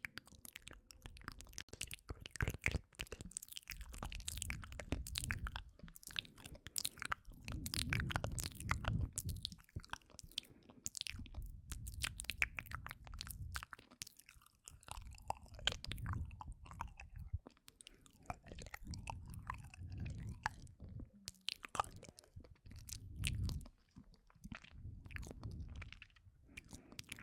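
ASMR mouth sounds close to the microphone: a dense, irregular run of lip and tongue clicks and smacks, with dull low bumps every second or two.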